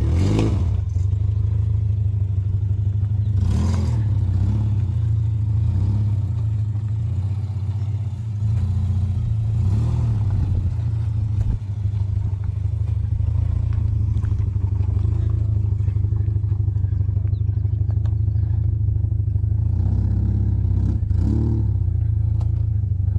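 A motor vehicle's engine running steadily with a low hum while on the move, with a few brief knocks or clatters along the way.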